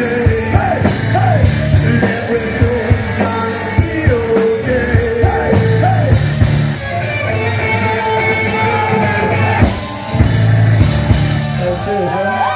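Live rock band playing loud: electric guitars, drum kit and a lead singer singing into the microphone.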